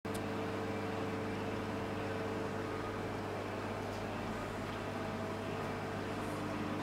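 A steady mechanical hum with an even hiss, unchanging throughout.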